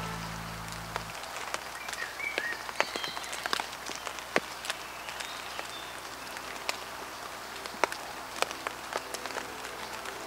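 Steady rain hiss with irregular, sharp drops pattering close by on a surface.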